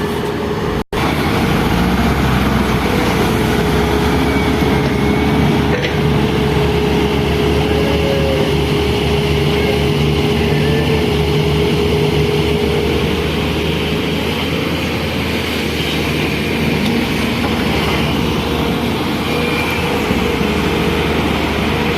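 Excavator's diesel engine running steadily, with a steady whine over the engine note. The sound cuts out for an instant about a second in.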